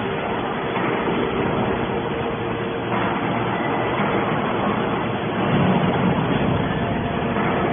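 Aluminum can baler running steadily: machine noise with a faint steady hum, swelling a little louder about five and a half seconds in.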